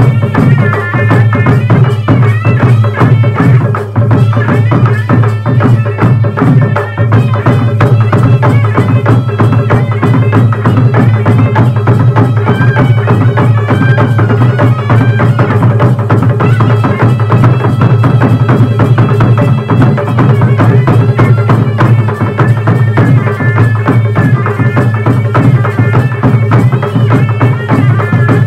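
Gandharv baja folk band playing: a shehnai-like reed pipe carries a wavering melody over a steady, dense beat of a barrel drum, small stick-beaten drums and clashing brass hand cymbals.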